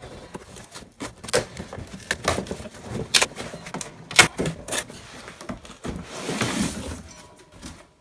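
Cardboard box being torn open by hand: a string of sharp rips and crinkles, with a longer tearing noise about six seconds in.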